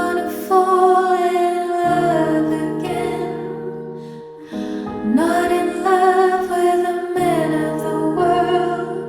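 Slow, tender vocal music: a high voice sings long held notes over sustained low chords that change about every two seconds.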